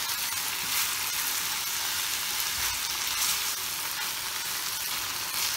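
Minced meat with peppers and tomato frying in oil in a pan, sizzling steadily, while a wooden spoon stirs it and scrapes lightly across the pan.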